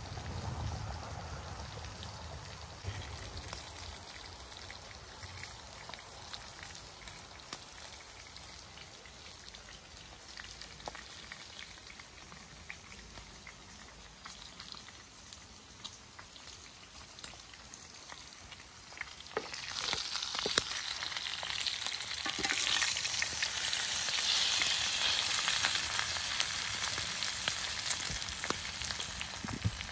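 Rib-eye steak sizzling in a cast iron skillet, a steady hiss with scattered small pops that grows clearly louder about twenty seconds in.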